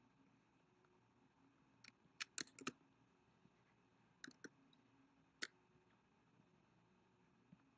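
Faint, sharp computer keyboard and mouse clicks: a quick run of about five clicks a couple of seconds in, then two more past the four-second mark and a single one shortly after, with near silence between.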